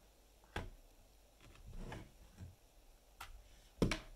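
Hands handling a 3D-printed PLA display case: a few light clicks and soft taps, then a louder knock near the end as the case is set down on a cutting mat.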